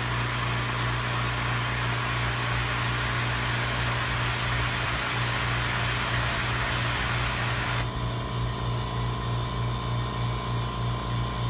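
California Air Tools 10020C ultra-quiet air compressor starting to fill its tank: a loud rush of air from the easy start valve venting so the pump does not start under pressure, over the steady hum of the pump motor. About eight seconds in the rush of air cuts off suddenly, leaving the pump running with a low, slightly pulsing hum.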